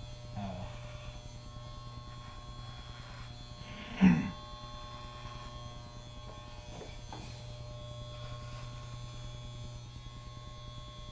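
Electric hair clippers buzzing steadily as they shave a head down to the scalp. A short loud sound breaks in about four seconds in.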